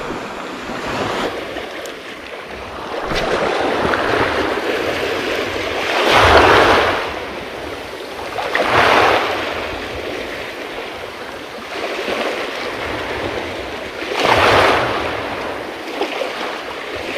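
Small sea waves washing in over a pebbly, rocky shoreline, with three louder surges of surf about six, nine and fourteen seconds in.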